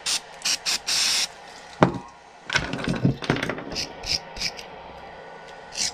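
Small parts and hand tools being handled on a workbench: a run of clicks and scrapes, with a sharp knock about two seconds in.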